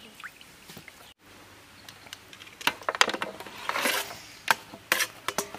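Raw chicken pieces tipped from a steel bowl onto a large steel plate: a run of wet slaps and metal clinks and clatters, busiest around three to four seconds in. Before that, faint handling of raw meat on the plate.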